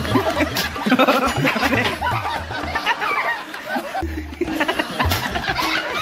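Several people laughing and chuckling over background music with a low bass beat.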